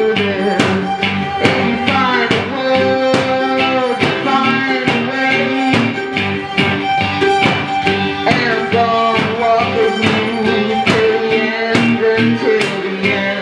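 Live acoustic music: cello and violin bowing held notes over plucked strings in a steady rhythm, with a woman singing into a microphone.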